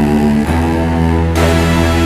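Electronic music with sustained bass notes and a plucked, guitar-like part; a brighter layer comes in about a second and a half in.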